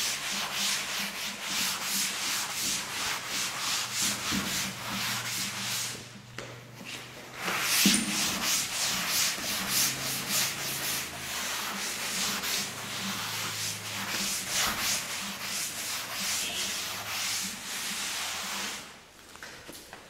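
Chalkboard duster rubbing chalk off a blackboard in brisk back-and-forth strokes, about three a second. There is a short pause about six seconds in and the strokes stop just before the end.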